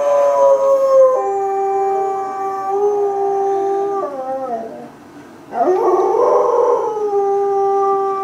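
Pet dog howling: a long, drawn-out howl that falls in pitch and trails off about four seconds in, then after a short break a second long howl that starts about halfway through and falls away at the end.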